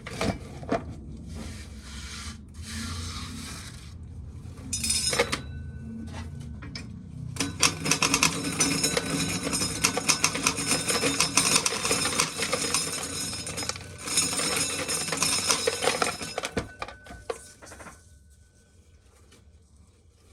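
Dried corn kernels being shelled off the cob and clattering into a bucket: a long spell of rapid, dense rattling with a short break in the middle, preceded by softer rustling and a few single clicks, then stopping.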